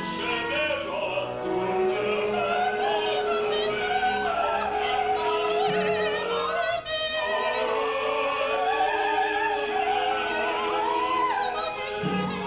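Opera singers in ensemble with a live orchestra: several voices sing at once, a soprano's among them, over a long held note, without a break.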